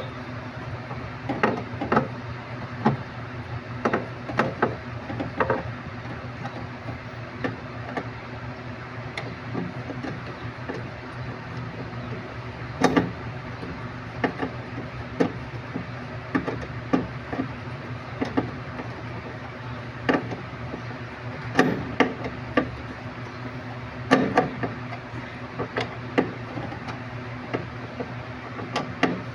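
Irregular metal clinks and knocks of a wrench tightening the 10 mm nuts that hold a washing machine's drive motor, a few of them sharp and loud, over a steady low hum.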